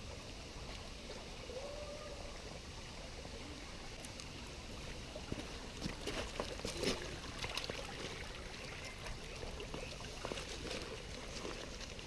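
Shallow woodland stream trickling steadily. Irregular crunching and rustling of steps on gravel and leaf litter start about a third of the way in and are thickest just past the middle.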